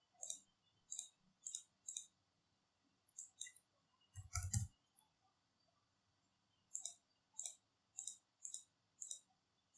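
Computer mouse clicking in short irregular runs, about a dozen faint clicks in all, with one louder knock about four and a half seconds in.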